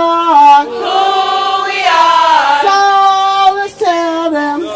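A crowd of marchers, mostly women, chanting a sung cadence chant in unison. The notes are held and step up and down in pitch, with short breaks between lines.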